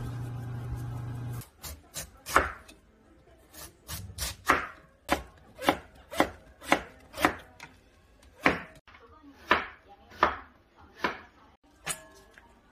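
A cleaver slicing white Korean radish on a wooden cutting board: a run of sharp single knife strokes, about two a second. A steady low hum is heard for the first second and a half and then cuts off suddenly.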